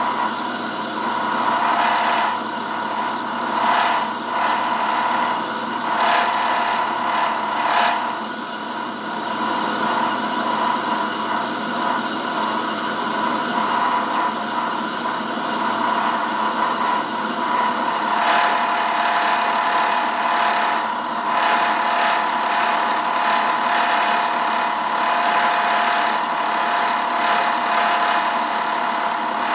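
Vertical milling machine running, its end mill cutting an incremental-depth slot along the centre line of a steel shaft held in a vise. A steady whine runs under a rough scraping cutting noise that swells and eases as the cut goes on.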